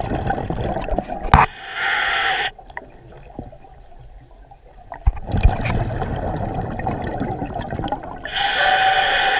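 Scuba diver breathing underwater through a regulator: two hissing inhales, about a second and a half in and again near the end, with low bubbling exhales rumbling between them.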